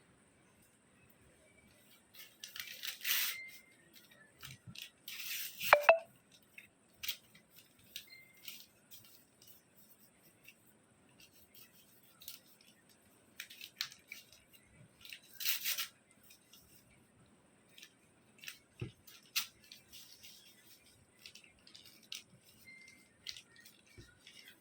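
Month-old parrot chick making scattered soft rustles, clicks and short hissy bursts, with one brief falling squeak about six seconds in.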